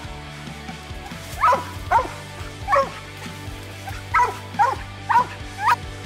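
Mountain cur barking treed at a raccoon up the tree. After a short gap there are about seven sharp barks, roughly two a second, in two short runs.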